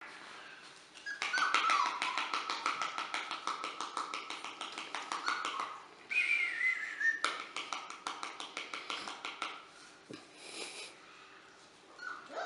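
Four-week-old puppies whining in high, wavering tones, over fast, steady clicking that dies away a few seconds before the end. A short falling whine comes near the end.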